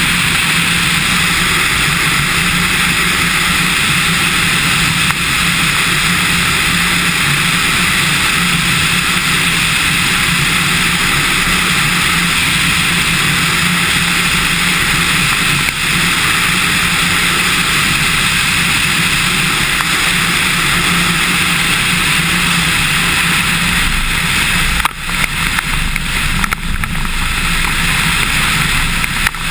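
Cessna 150's four-cylinder Continental O-200 engine and propeller running steadily, heard from outside the plane with air rushing across the microphone. The level dips and flutters briefly a few seconds before the end.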